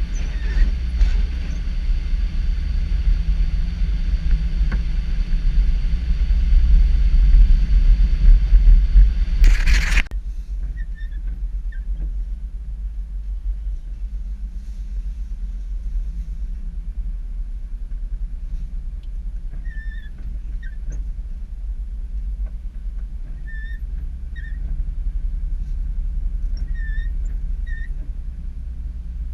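Cab noise of a 1993 Chevrolet pickup driving on snowy roads: a steady low engine and road rumble. For the first ten seconds a louder rushing noise rides over it, ending in a brief loud burst that cuts off sharply, leaving a quieter rumble with a few faint short squeaks in the second half.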